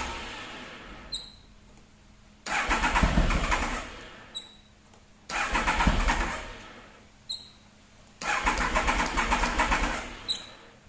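Triumph Tiger motorcycle's electric starter cranking the engine in three bursts of about a second and a half, with pauses between; the engine does not catch, a bike that won't start. A short high chirp sounds in each pause.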